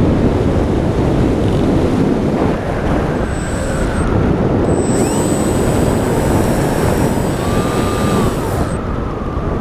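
Wind rushing over the onboard camera's microphone of a small radio-controlled airplane in flight, with the faint whine of its motor and propeller rising and falling in pitch as the throttle changes.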